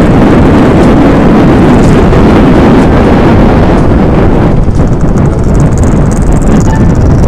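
Wind buffeting the microphone of a motorcycle riding at speed: a loud, steady rush with little else audible.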